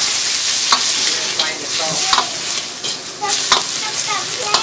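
Food sizzling in a hot pan while it is stirred, with a steady hiss and scattered clicks and taps of the utensil against the pan.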